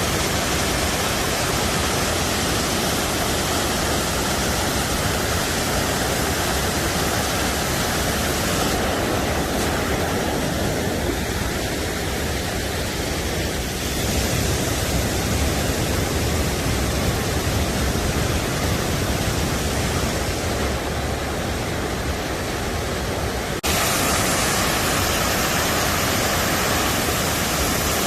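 Steady, dense rush of a waterfall, with a few abrupt changes in tone and level, the sharpest about three-quarters of the way through.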